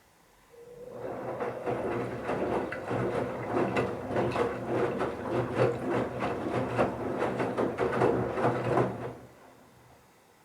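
Bauknecht Super Eco 7615 front-loading washing machine turning its drum during the wash phase: the inverter motor hums steadily while the wet towels tumble with repeated irregular knocks, for about eight seconds, then the drum stops.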